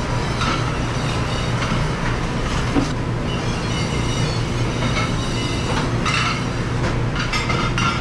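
Commercial dishwashing machine running with a steady hum and rushing noise, over which plastic dish racks and dishes clatter and knock several times as they are loaded and pushed into it.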